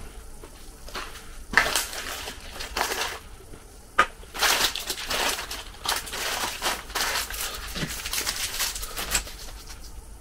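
Irregular rustling and crinkling from packaging handled with gloved hands, with one sharp click about four seconds in.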